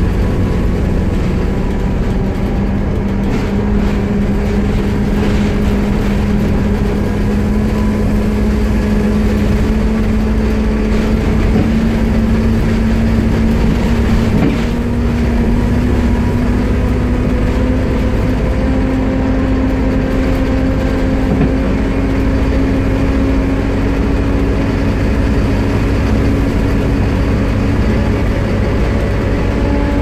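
Volvo B7TL double-decker bus under way, heard from inside the passenger saloon: a steady drone of engine and road noise with a loud vacuum-cleaner-like whine, the 'hoover', that rises slowly in pitch.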